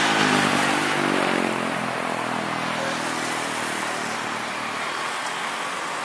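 Boeing 737-800 jet engines (CFM56 turbofans) on a landing approach: a loud jet rush with engine tones that slide down in pitch over the first two seconds as the plane passes, then a steadier roar that slowly fades as it flares over the runway.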